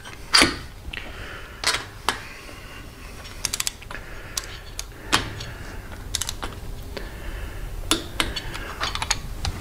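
Ratcheting torque wrench with a spark plug socket clicking in short runs, with scattered single sharp clicks, as a new spark plug is tightened to 12 to 18 foot-pounds.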